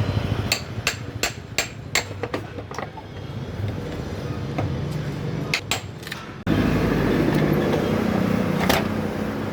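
Hammer knocks while opening the packing of a new pump motor: about eight sharp strikes in quick, irregular succession, then two more a little past halfway. A steady background rumble runs underneath.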